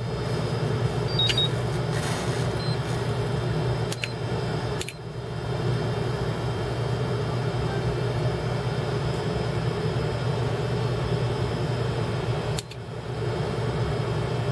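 Steady machine hum, like a cooling fan, with a low drone, dipping briefly about five seconds in and again near the end. A faint short beep about a second in, like the charger's buzzer as its buttons are pressed to start a balance charge.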